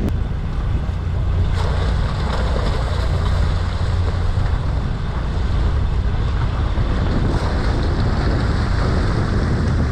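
Wind on the microphone and a boat's engine running steadily, with the splashing of a school of farmed cobia thrashing at the surface of a sea cage.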